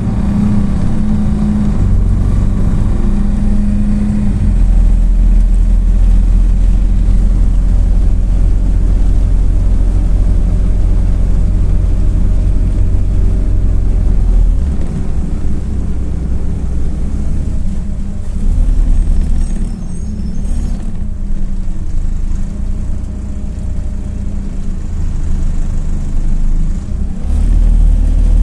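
MAZ-206 city bus in motion: a steady low engine and road rumble, heavier in the first half, easing off past the middle and picking up again near the end.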